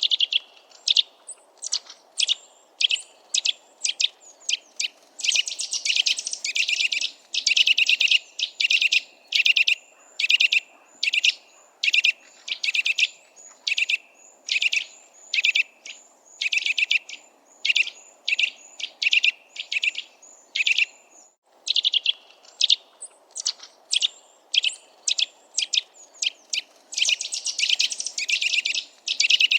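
Eurasian nuthatch giving loud, clear piping calls, short high notes repeated one or two a second, breaking into quicker runs in places.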